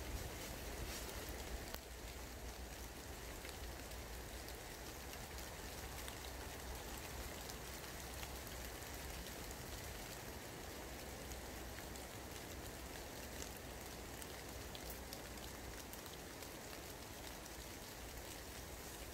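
Heavy rain falling steadily through woodland, a constant hiss with scattered louder drops ticking.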